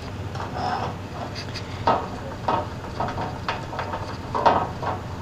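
Small 3D-printed plastic tray parts being handled, giving a few separate light clicks and knocks of hard plastic against plastic, over a steady low hum.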